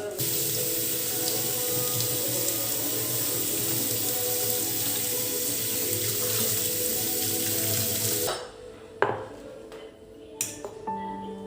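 Tap water running steadily into a sink, shut off suddenly about eight seconds in, followed by a couple of sharp knocks.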